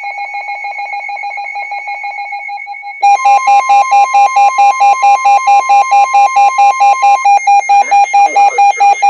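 Weather alert radio alarm for a flood warning: a fast-pulsing beep tone, then about three seconds in a much louder beeping alarm at about four beeps a second, with a steady higher tone under it until about seven seconds in.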